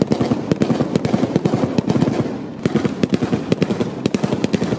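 Rapid, overlapping gunfire from a line of assault rifles, several shots a second, with a brief lull about halfway through.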